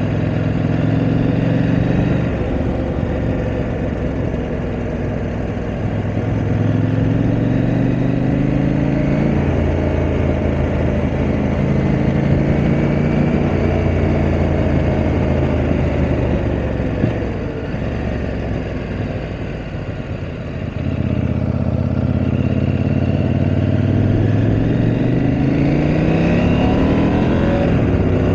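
KTM 890 Adventure R's parallel-twin engine under way, its pitch rising and falling with throttle and gear changes. About two-thirds through it eases off briefly, then climbs steadily in pitch near the end as the bike accelerates.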